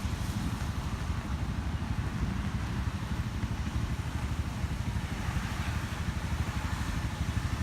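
Vehicle engine running steadily, a continuous low rumble.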